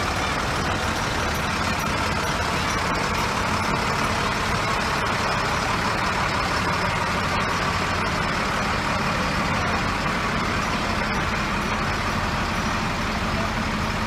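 Fire trucks' engines running as they crawl past at parade pace, a steady, even engine noise.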